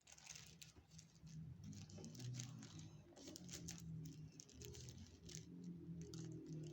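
Tissue paper rustling and crinkling as it is folded by hand, in short irregular crackles.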